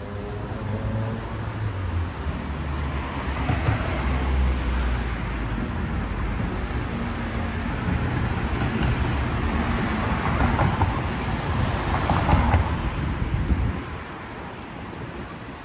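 Road traffic: motor vehicles passing close by, a low engine rumble and tyre noise that swells twice and drops off sharply about fourteen seconds in.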